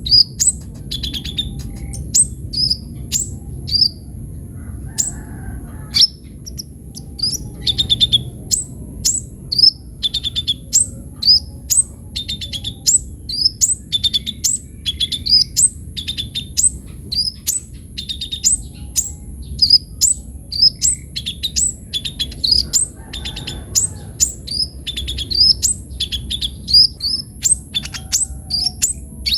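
Kolibri ninja sunbird singing vigorously: a continuous run of sharp, high chirps, each sweeping quickly downward, about two a second.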